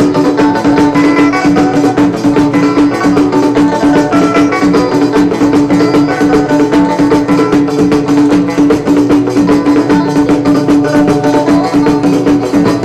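Live Moroccan folk ensemble playing: a banjo plucking a melody over a fast, steady pattern of goblet drum and hand drums, with a steady held note underneath.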